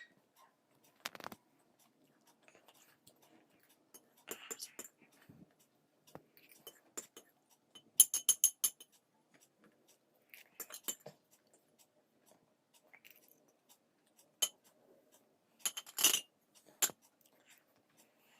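Eating from a plate of poha: a spoon clinks and scrapes against the plate now and then, with short runs of rapid clinks about halfway through and again near the end.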